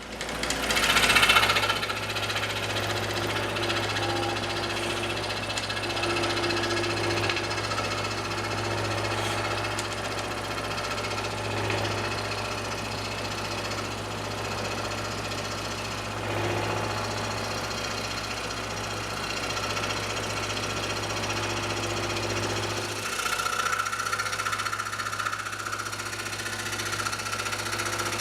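Scroll saw running, its reciprocating blade cutting through a thick maple block. It comes on right at the start and runs steadily, with its tone changing about three-quarters of the way through.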